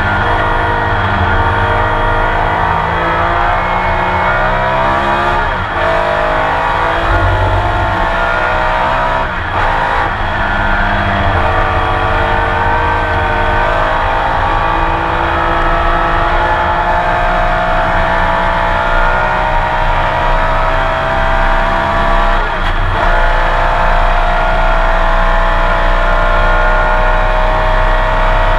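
Porsche 911 RSR's flat-six racing engine heard onboard at full throttle, climbing in revs with sharp gear changes about 5, 9 and 23 seconds in, then a long steady climb in pitch.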